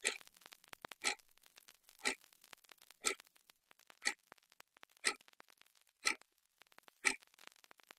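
A clock ticking steadily, one tick a second, with faint small scrapes and rustles between the ticks.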